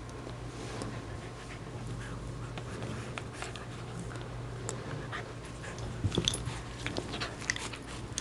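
A corgi panting softly while chewing and mouthing a small ball, with clicks of teeth on the ball that grow sharper and more frequent about two-thirds of the way in.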